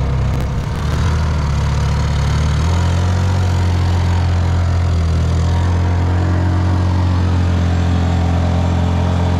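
Honda EU2200i and EU3200i inverter generators running together in parallel under about 2000 watts of lighting load: a steady engine hum whose note shifts about three seconds in.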